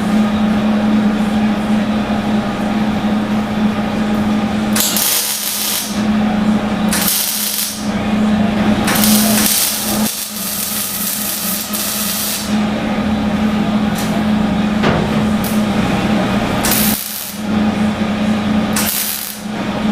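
MIG welder laying short tack welds on patches over rust holes in a car's window channel: about five sizzling bursts of arc, most under a second and one of about three seconds, over a steady low hum.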